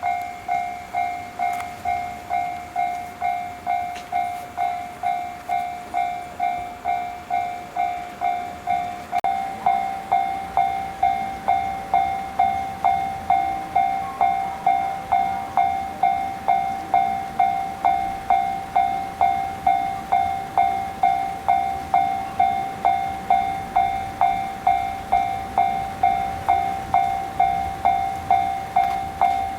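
Railway level-crossing warning bell ringing in a steady repeating ding, about three strikes every two seconds. It gets louder about nine seconds in.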